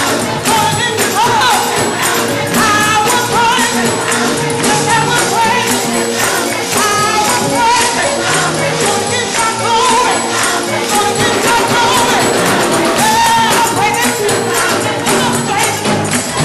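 Live gospel music: a youth choir and lead singer over a band, with a tambourine shaken on a steady, fast beat.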